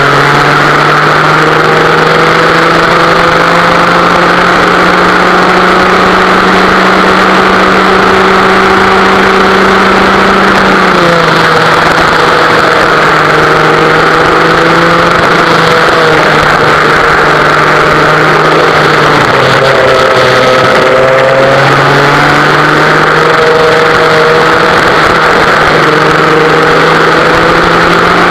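West Bend two-stroke kart engine running at racing speed, heard onboard the kart. Its pitch climbs slowly for about ten seconds, drops sharply about eleven seconds in, dips briefly again near twenty seconds, then climbs once more.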